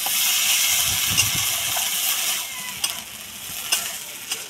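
Thick taro-stem curry sizzling in a metal karai while a metal spatula stirs it, with a few clicks of the spatula against the pan. The sizzle is stronger for the first couple of seconds, then eases.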